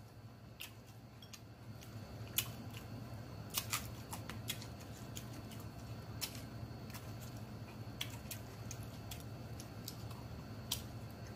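Close-up chewing of a mouthful of raw green chili pepper, with scattered crisp crunches and wet mouth clicks at irregular intervals over a steady low hum.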